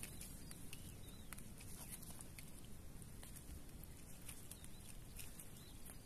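Faint handling sounds: scattered soft clicks and rustles as a small trevally (talakitok) is unhooked by gloved hands, over a low steady outdoor background noise.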